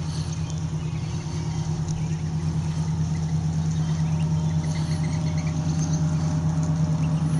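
A steady, low motor hum runs throughout. Mallard ducklings peep faintly over it now and then.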